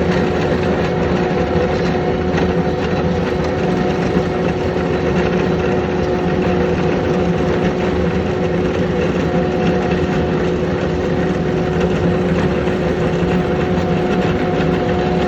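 A steady machine or engine running, with a constant hum that holds one pitch and never changes in speed.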